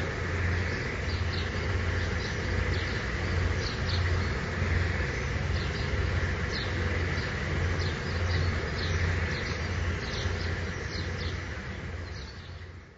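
Motorboat engine running steadily, with birds chirping over it; the whole sound fades out near the end.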